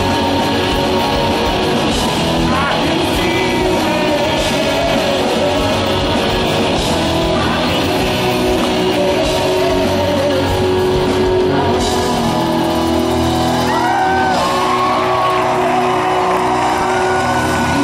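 Live rock band playing, with a male lead singer singing over the band's guitars and drums.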